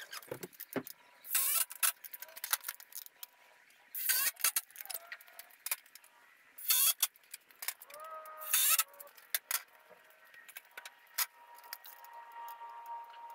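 Workshop handling noise: scattered clicks, knocks and clatter, with several short loud scraping hisses, as a man moves about a lumber frame and climbs a stepladder with tools. A faint steady hum comes in near the end.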